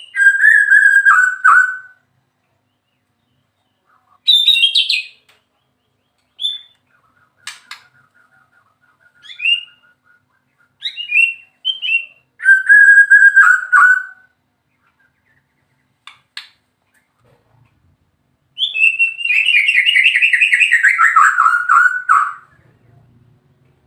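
White-rumped shama singing: loud whistled phrases separated by pauses of a second or two, one a quick rattling series of notes, and near the end a long phrase of about four seconds that falls in pitch.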